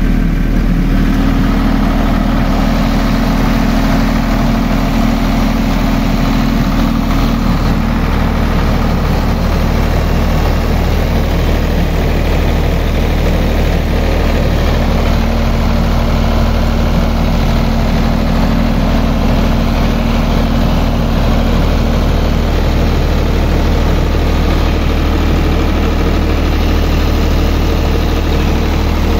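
Millat 25 kW diesel generator set running at a steady speed: a continuous low engine drone with no change in pitch or level.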